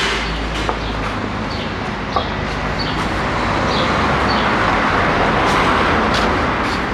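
Steady street traffic noise, with short high chirps repeating about every half second to second and a couple of light clicks.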